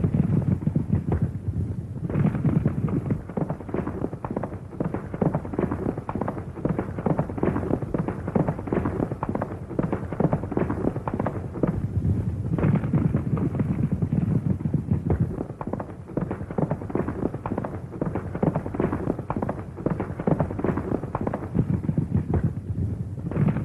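Horse galloping: a fast, continuous clatter of hoofbeats.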